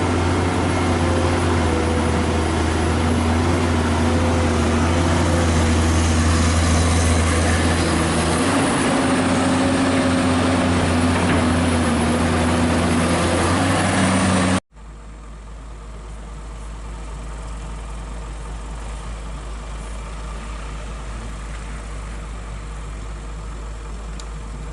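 Heavy diesel engine running with a steady low drone and slowly shifting pitch. About two-thirds of the way through it cuts off abruptly to a quieter, steady low engine hum.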